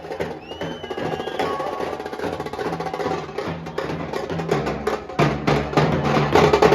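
Nashik dhol ensemble playing: fast, dense dhol and tasha drumming, with a melody of gliding notes near the start. The drumming grows louder and busier about five seconds in.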